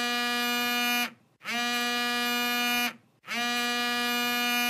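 Telephone ringing: a flat, buzzy ring tone sounding in rings about a second and a half long with short gaps, three times.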